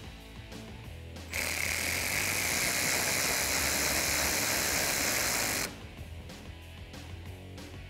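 Cordless electric ratchet running for about four seconds with a steady high whine, driving a 7 mm bolt into a plastic fender liner, then stopping abruptly.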